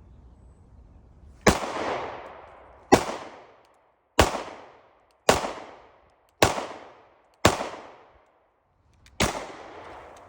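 Seven gunshots fired about a second apart, with a short pause before the last. Each shot is a sharp crack followed by an echo that dies away over about a second.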